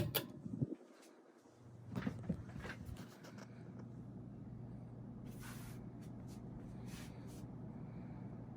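Fasco Gulf Stream ceiling fan motor running on high, a steady low hum, with a few light clicks early on and again midway.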